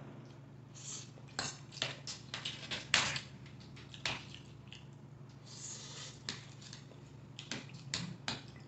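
Close-miked eating sounds: chewing and mouth smacks on a mouthful of instant noodles, with a fork and spoon scraping and clicking on the plate. It comes as an irregular string of short, soft clicks, the loudest about three seconds in.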